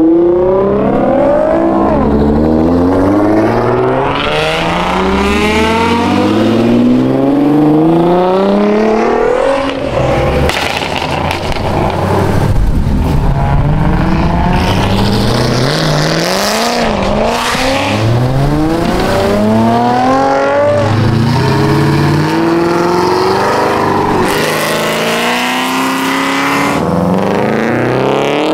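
Sports cars pulling away one after another, each engine revving up through the gears in repeated rising sweeps: a Nissan GT-R's twin-turbo V6, then a Corvette's V8, then a Subaru WRX STI's flat-four. Rougher, noisier passes come about ten seconds in and again near the end.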